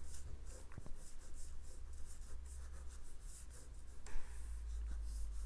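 Felt-tip marker nib rubbing across paper in a series of short, quick strokes, sketching lines.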